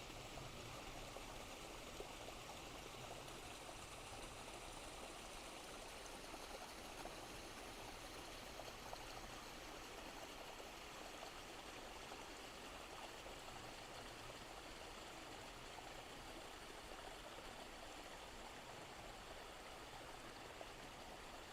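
Faint, steady rush of a stream or small river running.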